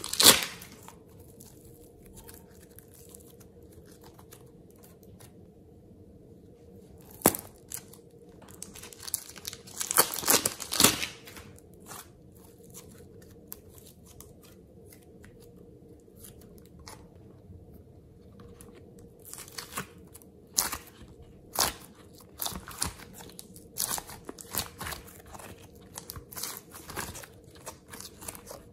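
Plastic piping bag crinkling in a few short bursts as clay is squeezed out of it, then scattered soft crackles and clicks as sticky clay is handled and peeled off a plastic mold.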